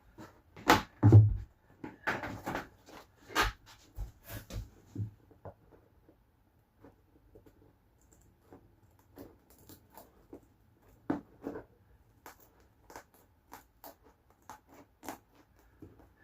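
Lino being scored and cut by hand along its edge: irregular scrapes and clicks, with a few louder knocks and a dull thud in the first few seconds, then quieter, sparser ticks.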